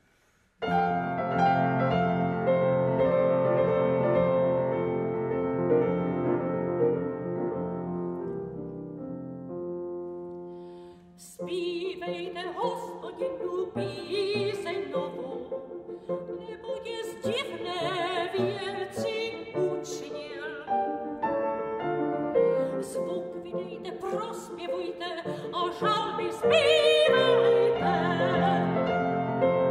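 Classical art song: a grand piano starts about half a second in with an introduction whose notes ring and fade, then a soprano comes in about eleven seconds in, singing with vibrato over the piano accompaniment.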